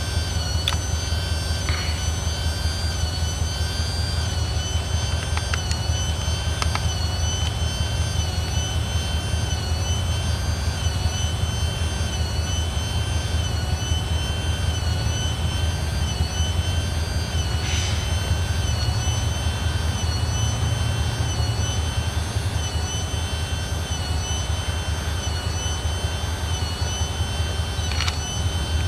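Engine idling steadily: an even low rumble with a faint high whine.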